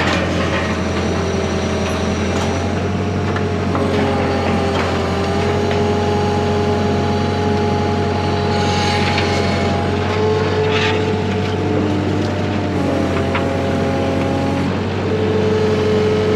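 A machine running steadily, with a constant low hum and held higher tones that shift in pitch every few seconds, and a few sharp knocks.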